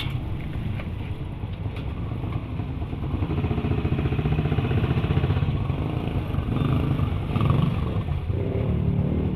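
A motorcycle engine running close by, with a steady engine note that gets louder about three seconds in.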